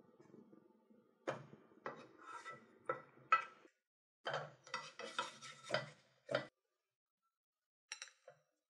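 Kitchen utensils clinking, knocking and scraping against cookware: a run of light knocks and scrapes, a short pause, a second run, then a couple of faint clicks near the end.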